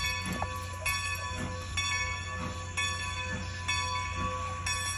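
Railroad crossing warning bell ringing, re-struck about once a second, over a steady low rumble from the approaching train.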